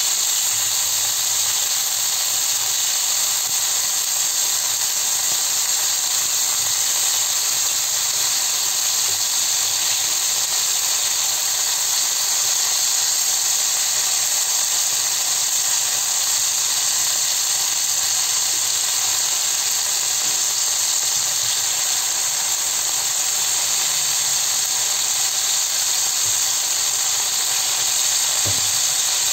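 Chicken pieces sizzling in hot olive oil in a frying pan as they brown, a steady, even hiss.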